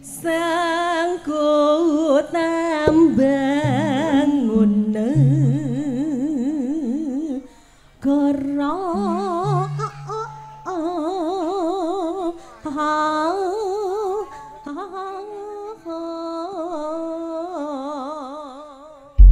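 A solo singer singing a slow, ornamented campursari vocal line in long held notes with wide vibrato, over low sustained accompaniment notes, with a brief pause about seven seconds in.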